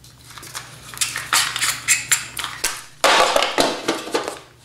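Hard plastic mounting pieces being handled and set down: a run of light clicks and clatter, with a louder rustling scrape about three seconds in.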